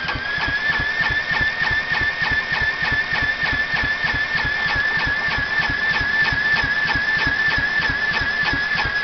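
Electric drill whining steadily as it cranks the Kawasaki FC150V single-cylinder mower engine, with an even chugging of compression strokes about six times a second; the engine turns over without catching.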